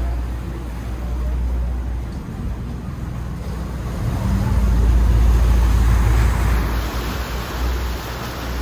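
Ferry boat's engine rumbling low and its propellers churning the water as it comes alongside the dock. The rumble swells about halfway through, and a rushing sound of water grows near the end.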